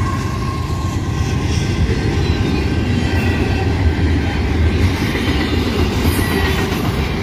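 Union Pacific double-stack intermodal freight train passing close by. The mid-train DPU diesel locomotive rumbles past, followed by the steady rumble and clatter of loaded container well cars. The grade-crossing bell rings alongside.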